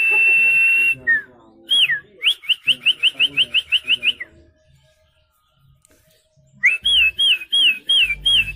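A man whistling birdsong with his mouth alone, no tool: a held high note, then a quick run of about ten rising-and-falling chirps. After a pause of about two seconds comes a series of slurred, downward-sweeping notes, about three a second.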